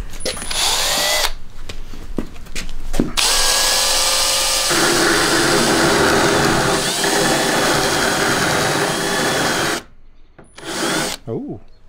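Power drill spinning a diamond-tipped rotary thread repair disc against the hammer-smashed threads of a Grade 8 bolt, cleaning the threads up. It starts in a few short pulses, one with a rising whine, then runs steadily for about six seconds, the sound changing about five seconds in. It cuts off sharply near ten seconds in, with one brief burst after.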